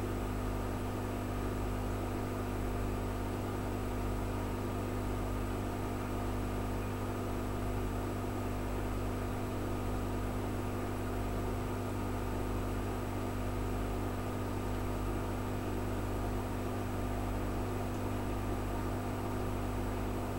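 Aquarium filter pump running: a steady electric hum over a constant hiss of moving water.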